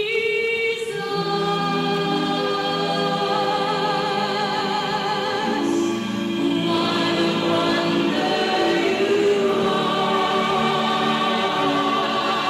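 Choir singing: several voices holding long notes with vibrato, the chords changing every second or two.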